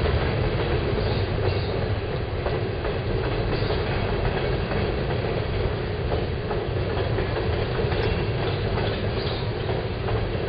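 Coal hopper cars of a freight train rolling past: a steady rumble of steel wheels on the rails, with faint clicking as wheels cross rail joints.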